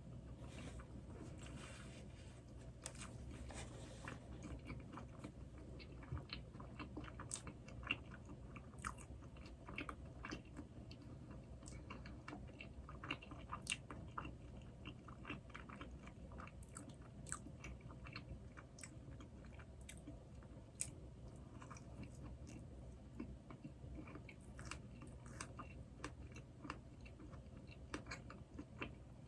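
Close-miked eating of doughnuts: biting and chewing with many small, sharp mouth clicks and light crunches.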